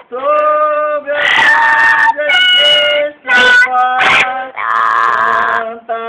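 Amazon parrot vocalizing: a string of held, whistle-like sung notes alternating with harsh, raspy calls.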